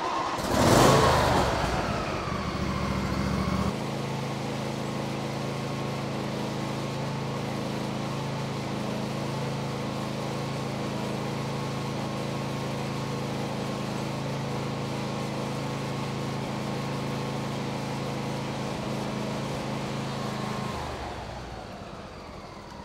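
Husqvarna YTH2242 lawn tractor's Briggs & Stratton engine starting up, then running steadily at medium throttle. About 21 seconds in it is shut off and runs down to a stop.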